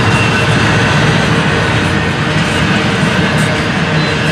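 Double-stack intermodal well cars rolling past close by: a steady, loud rumble of steel wheels on rail, with faint high ringing tones over it.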